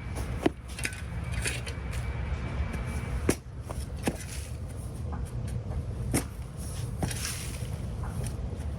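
Hand landscaping work with garden tools: irregular sharp knocks and scrapes, one every second or two, over a steady low rumble.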